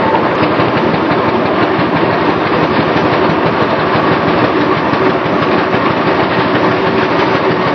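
Steam traction engine running, a steady dense mechanical clatter and hiss with no break.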